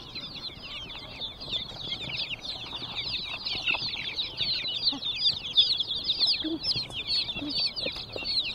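A large crowd of chicks peeping nonstop: many high, quick peeps overlapping one another.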